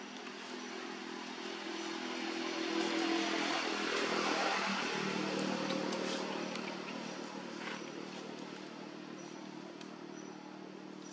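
A motorbike engine passing by: it grows louder, drops in pitch about halfway through as it goes past, then fades away.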